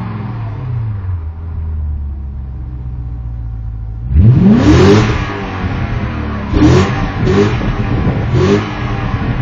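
BMW E38 740i V8 through a FOX aftermarket exhaust: revs settle into a steady idle, then the throttle is blipped hard about four seconds in. Three shorter blips follow, each rev rising and falling quickly back to idle.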